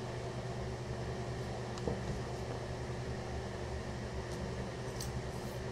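Steady low electrical hum with a hiss behind it, and a few faint clicks about two seconds in and again near the end.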